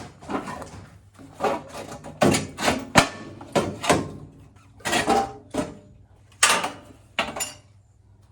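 A series of irregular knocks and clanks from hand work fitting something over the truck's lower ball joint, the sharpest about three seconds in, with a lull near the end.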